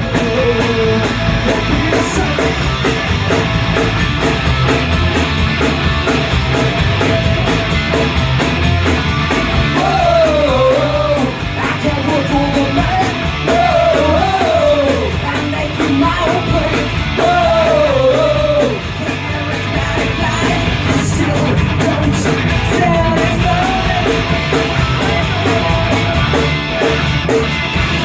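Live punk rock band playing: electric guitar, bass and drums, loud and steady. A melody line bending up and down rides on top from about ten seconds in.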